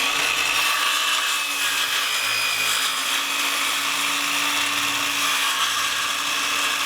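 Electric power saw cutting a Miratec trim board: the motor runs at full speed with a steady high whine over the noise of the cut.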